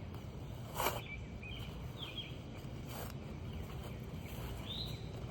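Digging in wet soil: two short scraping strokes, about a second in and about three seconds in, over a steady low rumble, with a few faint high chirps.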